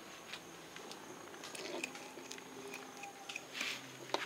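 Fillet knife cutting a flounder's fillet away from the bones: scattered small wet clicks and slicing noises, a brief scrape about three and a half seconds in, and a sharp click just before the end.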